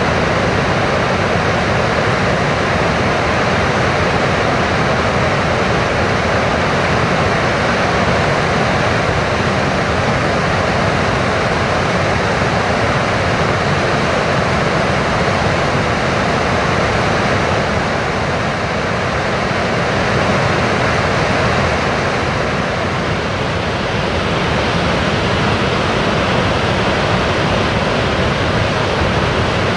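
Loud, steady rush of fast-moving water.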